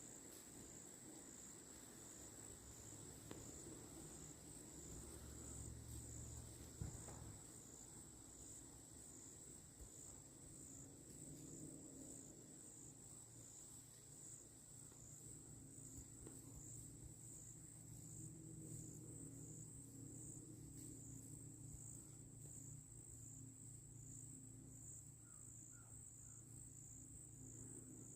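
Faint chorus of insects trilling: one high-pitched, evenly pulsing trill that runs on without a break.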